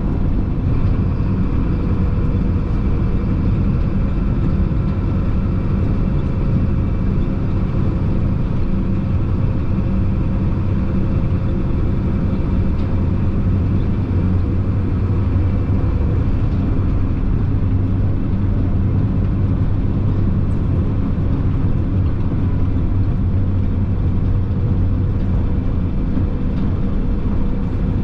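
Chenglong concrete mixer truck's diesel engine running steadily while driving, a constant low drone with a few steady tones over road noise, heard from inside the cab.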